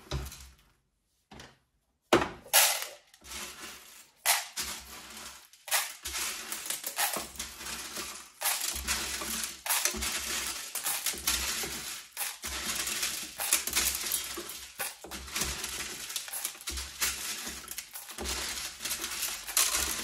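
Black plastic housing parts of a Melitta CI Touch coffee machine clattering and scraping as they are worked loose by hand: a few sharp knocks about two seconds in, then near-continuous rattling and scraping with many small clicks.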